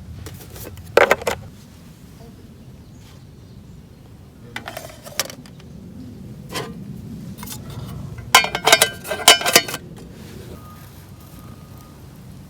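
Metal camp cookware and utensils being handled: clinks and rattles, with a sharp clatter about a second in, a few lighter knocks in the middle, and the loudest burst of rattling about two-thirds of the way through.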